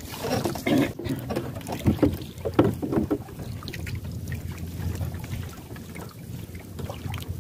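A set gill net being hauled hand over hand into a small wooden boat: wet mesh rustling and water splashing off it, with a few strong pulls in the first three seconds. Underneath runs a steady low rumble of wind on the microphone.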